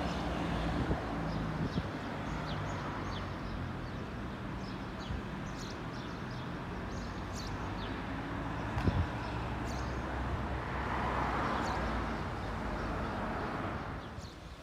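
Outdoor ambience: small birds chirping over and over above a steady low mechanical hum, with a broad swell of noise that rises about ten seconds in and fades by fourteen.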